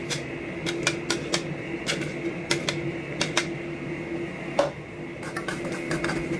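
Thick chili-mango sauce simmering and being stirred in a small saucepan: irregular sharp clicks and taps, a couple a second with a louder one near the end, over a steady hum.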